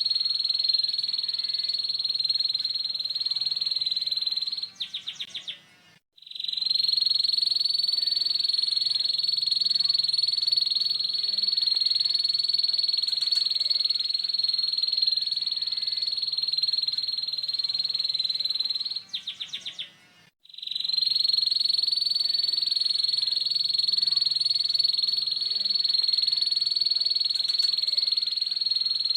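Domestic canary singing a long, unbroken, high rough trill: the 'ngeriwik' song used to train young canaries. It breaks off twice with a quick stutter of clicks and a short gap, then starts again.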